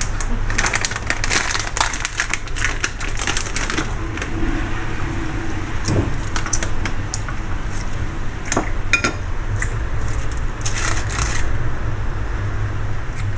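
Spoons scraping and clicking against a paper-lined metal baking tray as melted chocolate is spread and M&Ms are pressed in, with rustling of the baking paper. The clicks are irregular, busiest in the first few seconds and again near the end, over a steady low hum.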